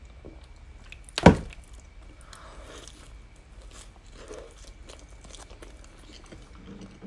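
Close-miked eating of a soft bread bun: one loud sharp sound about a second in, then soft chewing with light crackles.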